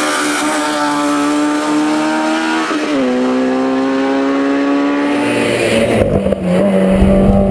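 Ford Escort Mk1 race car's engine running hard at high revs, holding a steady note that steps down in pitch about three seconds in. Near the end a second race car passes close by with a louder, deeper rumble.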